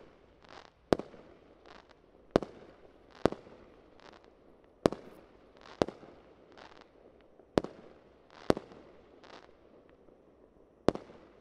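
Fireworks display: about eight sharp bangs from bursting aerial shells, one every second or two, each trailing off briefly, with softer hissing bursts between them.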